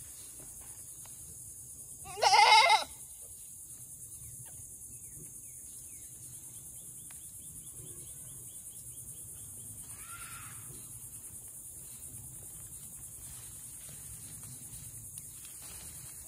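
Goat bleating: one loud call lasting under a second about two seconds in, then a fainter, shorter call about ten seconds in.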